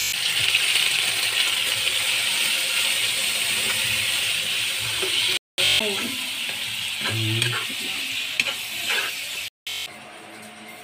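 Raw meat sizzling and spattering in hot oil with sautéed garlic and onions as it goes into a frying pan and is stirred with a spatula. After a cut near the end the sizzling stops and a much quieter, steady sound follows.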